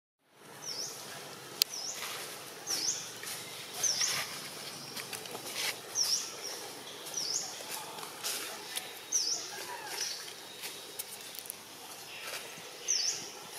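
Outdoor ambience with a bird repeating a short, high chirp every second or two, and scattered sharp clicks.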